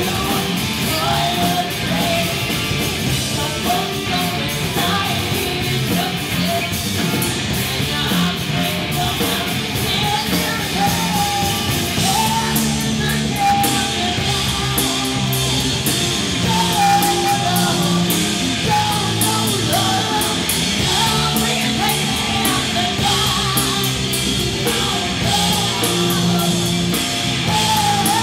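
Live rock band playing: a woman singing into a microphone over bass guitar and a steady drum beat.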